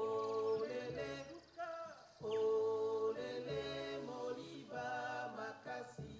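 Unaccompanied singing: long held notes in short phrases separated by brief pauses.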